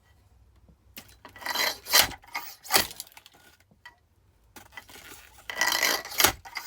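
Wedge axe striking firewood to split it into small kindling pieces: several sharp chops, with the wood scraping and rubbing between blows.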